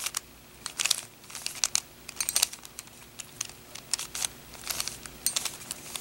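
Plastic Rubik's Cube layers twisted by hand through the middle-layer edge-insertion algorithm: a string of about eight quick turns, each a short clack and scrape of the pieces.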